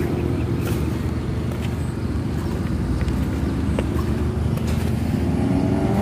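Steady low engine rumble of road traffic, with an engine note rising near the end as a vehicle accelerates.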